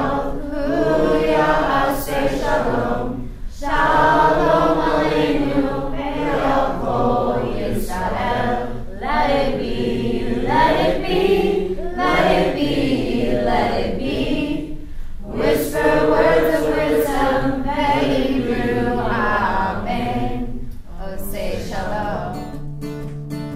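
Choir of voices singing a song in long sung phrases, with brief breaks between them.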